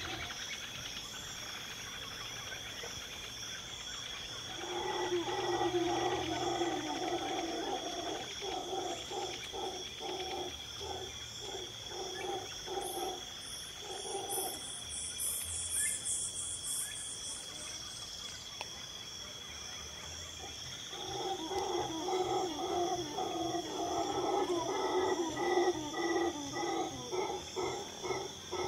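Insects trill steadily at a high pitch under a low, rapidly pulsing animal call that comes in two long bouts, the first starting about five seconds in and the second about twenty-one seconds in. A brief, higher pulsed insect buzz rises over them near the middle.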